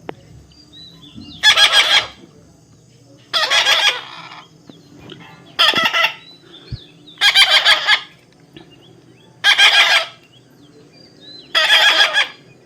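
Baby parrot giving harsh, raspy begging calls while being offered food, six calls about two seconds apart, each lasting about half a second.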